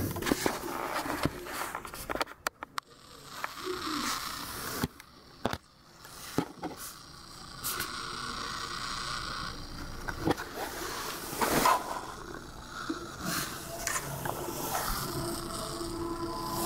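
Irregular sharp pops and clicks from a Pipo Smart S1's audio, scattered over a steady background hiss: the unwanted popping noise the device makes.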